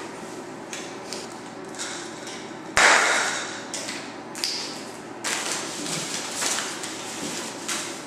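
Handling noises: light taps and rustling, with one sharp, louder thump a little under three seconds in and a few smaller knocks later.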